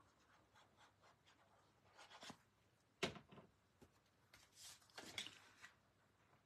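Faint cardstock handling: sheets of paper shuffled, a light tap about three seconds in, then a rubbing slide as the layered panel is pressed and smoothed onto the card base by hand.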